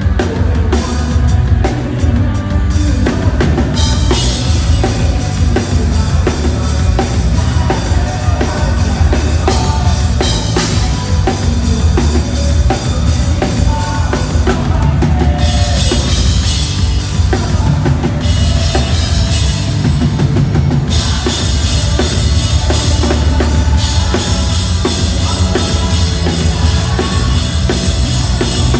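Pop-punk band playing loud live rock, with a pounding drum kit, cymbal crashes and full-band electric guitars and bass. The cymbal wash comes and goes in sections through the passage.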